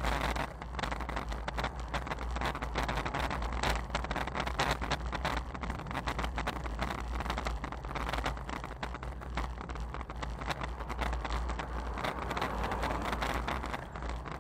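Wind rushing over a bicycle-mounted action camera's microphone while riding on asphalt, a steady low rumble with many small knocks and rattles.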